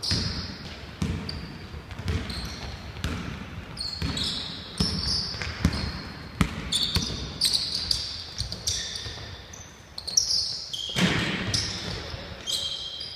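Basketball bouncing on a hardwood gym floor as it is dribbled, with sneakers squeaking and players' footsteps thudding in between.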